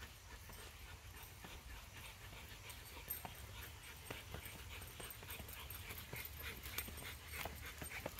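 Several leashed dogs and their walkers moving along a paved path: scattered light clicks and scuffs over a steady low rumble, busier from about three seconds in.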